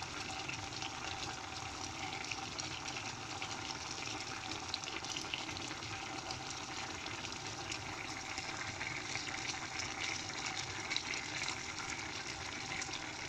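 A pot of yam and plantain pottage with palm oil bubbling and crackling steadily as it cooks on a gas burner.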